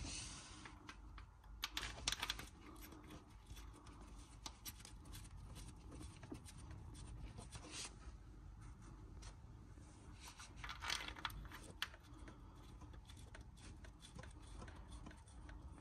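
Faint, irregular metallic clicks and ticks of hand tools and bolts as the small bolts are fitted into a car's engine mount. Two louder flurries of clicking come about two seconds in and about eleven seconds in.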